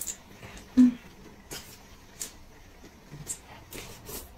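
Quiet eating sounds: a person chewing food with scattered small clicks, such as chopsticks against a bowl, and one short hum about a second in.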